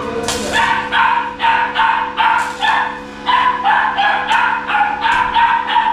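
A dog barking over and over in quick, short barks, about two to three a second, with a brief pause about halfway through.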